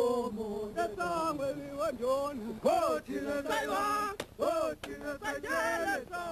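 Zulu men's voices singing a chant, in phrases that rise and fall in pitch with short breaks between them.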